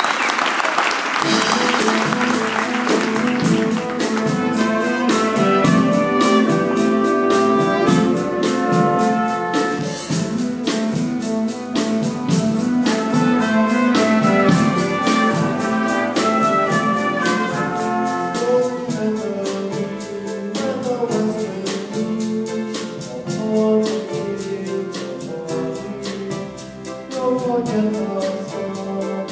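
Applause dying away in the first two seconds, then a band with brass and a steady drum beat strikes up an up-tempo number to accompany a show choir.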